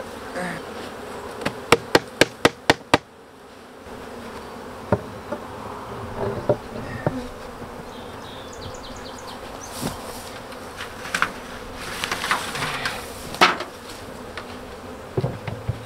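Honey bees buzzing steadily around an open hive, with a quick run of about seven sharp wooden knocks near the start and scattered single knocks later as wooden hive parts are handled.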